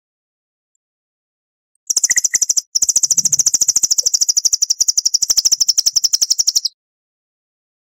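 A recorded songbird singing a fast trill of rapidly repeated high notes: a short burst about two seconds in, then after a brief break a long, even trill lasting about four seconds that stops abruptly. This is the kind of long 'tembakan' (shot) phrase used as masteran for training captive songbirds.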